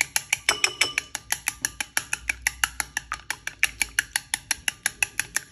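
Wooden chopsticks beating eggs in a ceramic bowl, clicking against the side of the bowl in a fast, even rhythm of about six strokes a second.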